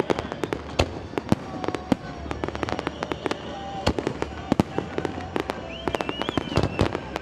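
Fireworks display: aerial shells bursting in rapid, uneven bangs and crackles, several a second.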